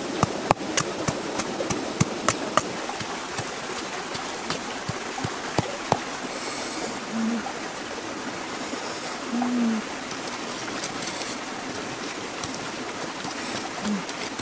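Wood fire crackling with sharp pops for the first few seconds, over a steady rushing hiss that carries on after the pops die away.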